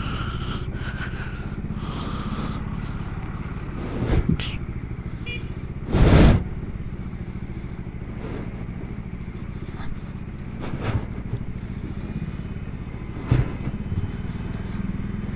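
Single-cylinder two-wheeler engine running steadily on the move, with several short, loud thumps, the loudest about six seconds in.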